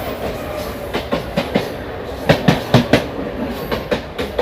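Train running with its wheels clacking over rail joints above a steady rumble: four lighter clacks about a second in, then four louder, sharper ones around the middle.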